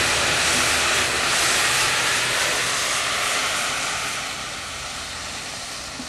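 Potassium nitrate and sugar mixture packed into a smoke alarm burning with a loud, steady hiss. The hiss fades from about four seconds in as the fierce burn dies down.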